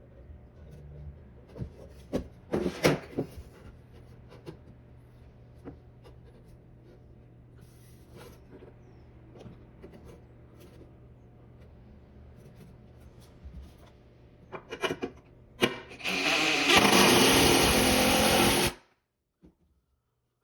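Scattered knocks and taps of work, then a power tool runs loudly for about two seconds near the end and cuts off suddenly.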